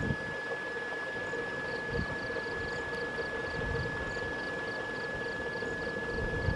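Night-time outdoor ambience: a constant thin high tone over a low hum, with a faint rapid chirping several times a second that starts about two seconds in. Low rumbling swells, like wind on the microphone, come and go.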